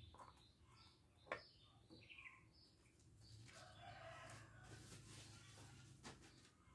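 A rooster crowing faintly in the distance, one drawn-out call, with a single light tap about a second in.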